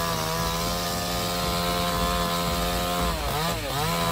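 Chainsaw engine running at high speed with a steady whine, its pitch dipping and recovering twice about three seconds in, as the engine is loaded or the throttle eased.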